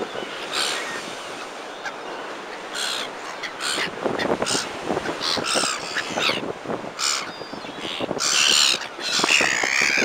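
Flock of black-headed gulls calling, many short calls from several birds, coming thicker and louder near the end. Waves break and wash against the sea wall underneath.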